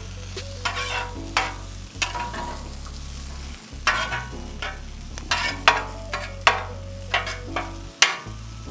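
Metal spatula scraping and chopping rice on a hot flat-top griddle, sharp scrapes in quick runs of a few strokes, over the steady sizzle of the rice frying in oil.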